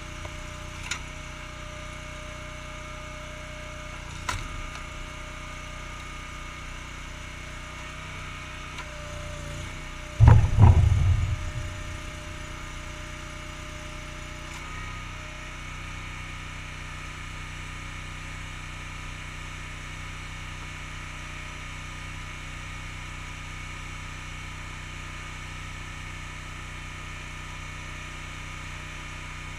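Honda GX690 V-twin engine on a homemade log splitter running steadily. A few sharp clicks sound early, and about ten seconds in there is a loud clatter of wood knocking, lasting about two seconds.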